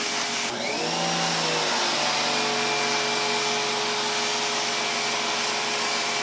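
Giraffe Tools Grandfalls G20 electric pressure washer running, its jet from the 40-degree tip spraying onto concrete: a steady hiss of spray over the machine's whine. About half a second in, the spray gets brighter and the whine dips in pitch, then settles to a steady tone.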